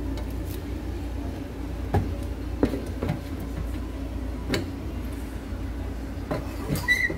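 Hong Kong egg waffle iron being handled: several sharp metal knocks and clanks, with a cluster near the end as the lid is shut and the iron turned over, over a steady low hum. A brief high squeak or beep just before the end.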